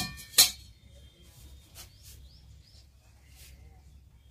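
Two sharp knocks with a short metallic ring, about half a second apart, followed by faint, scattered bird chirps.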